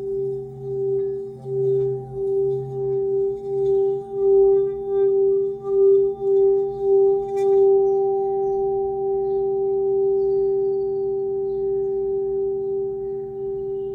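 A 12-inch antique hand-hammered singing bowl rimmed with a suede-wrapped stick, sounding one steady hum with a higher overtone that pulses in loudness as the stick circles. About eight seconds in the pulsing stops and the bowl rings on evenly, slowly fading.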